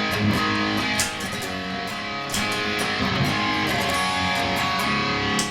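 Electric guitar played through a Boss Katana 100 amplifier: a steady run of picked notes and chords.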